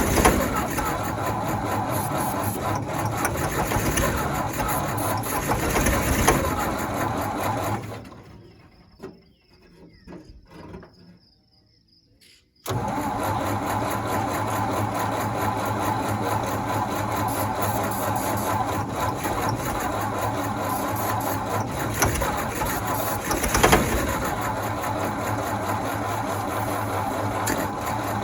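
Gasoline engine of a New Holland 1282 baler running, then dying away about eight seconds in. After a few seconds of near quiet with faint ticks, it is running steadily again. It is being got going on fresh gas after losing fuel or spark.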